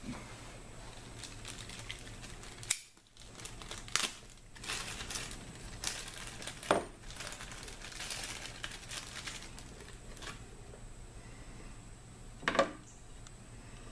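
Hands working under a pickup's hood: rustling plastic and several sharp plastic clicks and knocks as the purge valve's electrical connector is worked loose.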